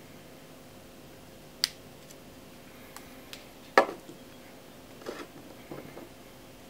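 A few short, sharp clicks and knocks of small hard objects being handled, over a quiet room with a faint steady hum. The loudest is a knock a little under four seconds in, with a brief ring.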